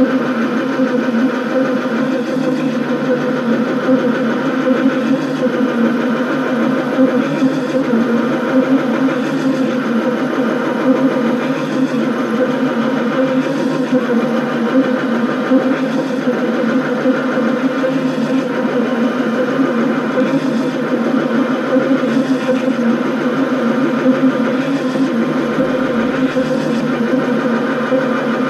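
Chinese mini lathe running steadily with a boring tool taking a pass inside the bore, a constant motor-and-gear hum with no change in speed.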